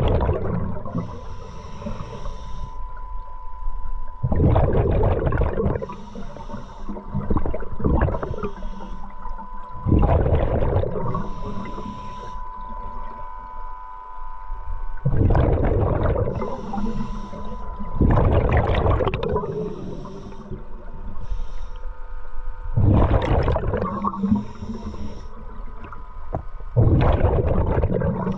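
Scuba diver breathing through an open-circuit regulator: about seven breaths, each a short high hiss of inhaling followed by a loud rush of exhaled bubbles, over a faint steady whine.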